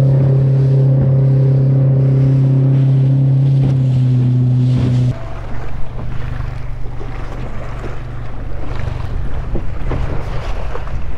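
Small outboard motor running steadily as the micro skiff moves, with spray off the hull. About five seconds in, the motor sound drops away suddenly, leaving wind on the microphone and waves with a faint low hum.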